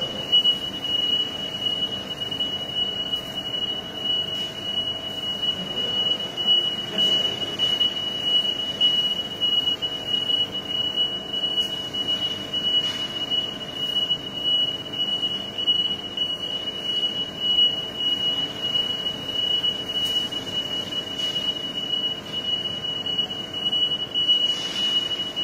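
A continuous, high-pitched electronic alarm tone, steady and unbroken, with a fainter, lower hum beneath it.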